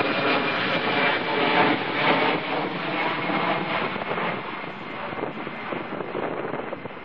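Boeing 767 jet engines on approach, a loud jet rumble with a high whine that fades steadily as the airliner passes.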